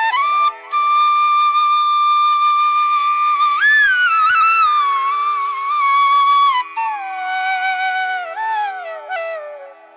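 Background music: a solo wind instrument of the flute kind holds a long note that bends up and back, then plays a falling phrase lower down, over a steady drone.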